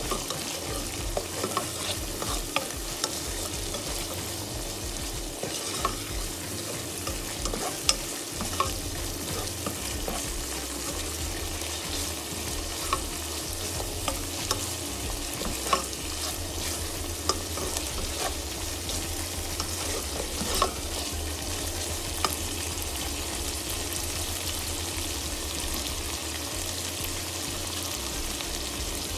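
Tuna and onions sizzling as they fry in a nonstick pan, stirred with a slotted spatula that scrapes and taps against the pan every second or so.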